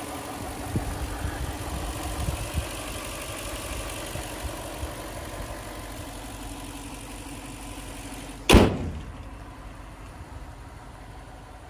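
2001 Toyota Land Cruiser engine idling steadily. About three-quarters of the way through, the hood is slammed shut with a single loud bang, and the idle sounds a little quieter after it.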